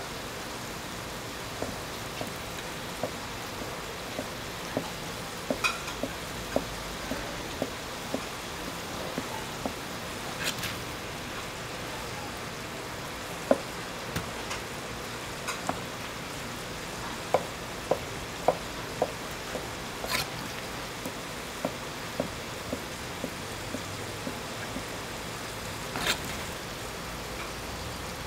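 Assorted pork offal cuts sizzling on a large iron griddle: a steady frying hiss with many short clicks and pops scattered through it, a few of them louder.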